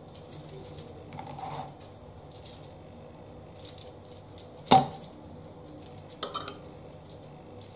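Quiet food-prep handling: a spoon spreading sour cream into a stuffed mackerel on aluminium foil, with soft rustles and a few sharp clicks. The loudest click comes about halfway through, and a quick cluster of clicks follows near the end.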